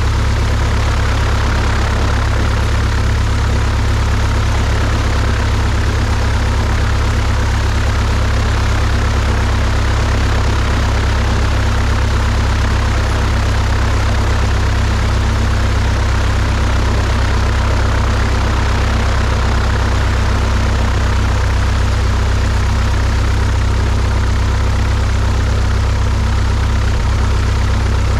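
Cessna 172's piston engine and propeller running steadily at low, taxi-idle power with a deep drone.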